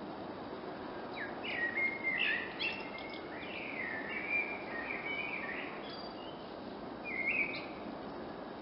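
Eurasian blackbird singing: phrases of whistled, gliding notes, one starting about a second in, another around the middle, and a short phrase near the end, over steady background noise.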